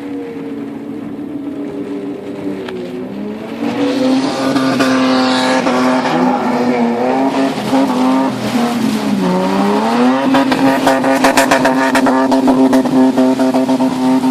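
A motor vehicle's engine running and revving, its pitch sliding up and down repeatedly, growing louder about four seconds in.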